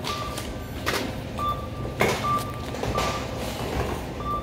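Supermarket checkout barcode scanner beeping as items are scanned: short single beeps at one pitch, repeating at uneven intervals, with a few sharp knocks of goods or a cart in between.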